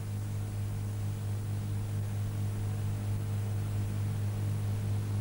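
Steady low electrical hum under an even hiss from an old video tape's soundtrack, with no other sound over it.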